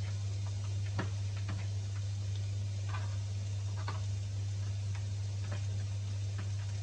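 Kitchen knife cutting cheese on a cutting board, the blade making irregular light taps on the board. A steady low hum runs underneath.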